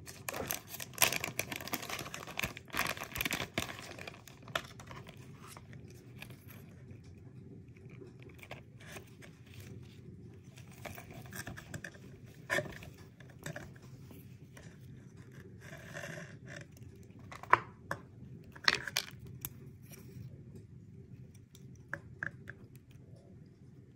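Clear plastic packaging bag crinkling and rustling as hands open it and pull a bracelet out, loudest for the first few seconds. After that, quieter handling of a fabric pouch and paper tag, with a few sharp clicks.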